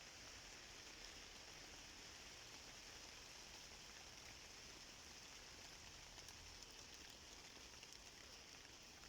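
Near silence: a faint steady hiss, with a few soft ticks about six to seven seconds in.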